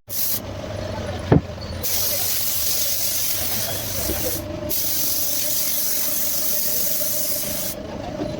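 Paint being sprayed onto a subwoofer box: a short hiss, a sharp knock, then two long spraying hisses with a brief break between them.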